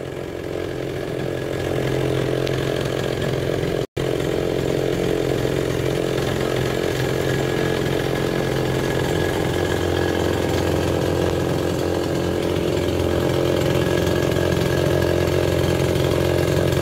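Home-built boat outboard powered by a two-stroke chainsaw engine, running steadily at low throttle. It picks up a little about two seconds in.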